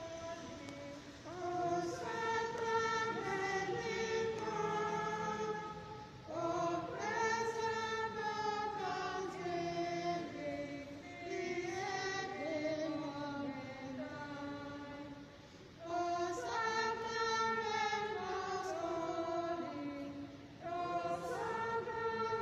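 A church choir singing a hymn, in melodic phrases a few seconds long with brief pauses between them.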